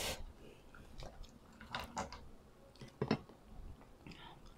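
Quiet close-up eating sounds of crispy fried dried fish (daing): soft chewing with a few crisp crackles about a second apart.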